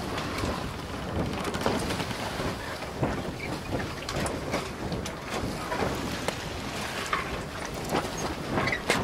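Wind buffeting the microphone over the rush of water along a moving canal boat's hull, with many irregular small splashes and ticks.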